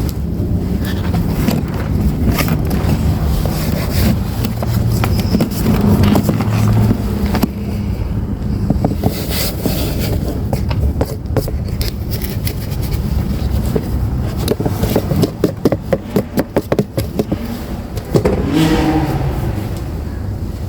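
Gym chalk being crushed and crumbled, a dense crunching and crackling, with a run of quick sharp crunches about three-quarters of the way through.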